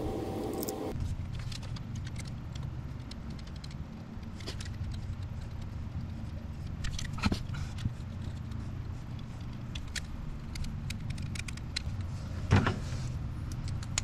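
Light metallic clicks and clinks of a socket extension and glow plugs being handled and threaded by hand into a 7.3 Powerstroke diesel's cylinder head, over a low steady hum. Two of the clicks, about seven and twelve seconds in, are louder.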